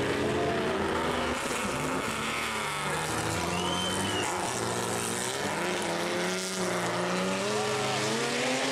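Several classic racing car engines going through a slow corner together, their pitches falling as they brake and rising again as they accelerate away, overlapping one another.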